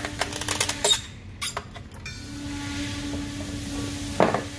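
Sharp clicks and small knocks from the wiring and connector of a Ram 1500 fuel pump module being handled with pliers. From about two seconds in there is a steady low hum, broken by a short noise near the end.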